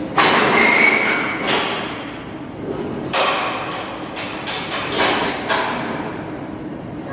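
A run of thuds and knocks, four or five strong ones spread over several seconds, over a steady noisy background.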